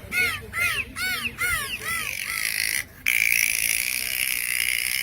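Dolphin whistling: a quick run of short arching whistles, each rising then falling in pitch, about three a second. Then a long, steady whistle, with a brief break near three seconds in.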